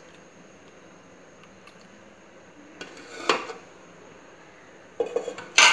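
Metal spoon and cookware clinking against a metal karahi: a short scrape about three seconds in, then a few clinks and one sharp clank near the end.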